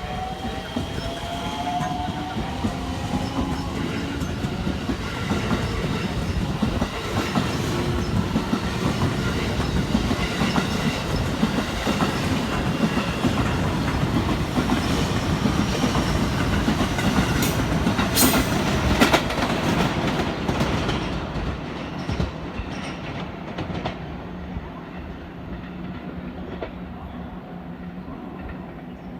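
A JR West Special Rapid electric train pulls away from the platform. The traction motors' whine rises in pitch as it accelerates, then the wheels clatter over rail joints and points as the cars pass, with a sharp crack about two-thirds of the way through. The sound fades away near the end.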